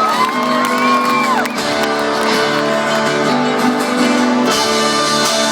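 Live band playing the instrumental lead-in to a song, with guitar over steady held notes. The crowd whoops and cheers through the first second or so.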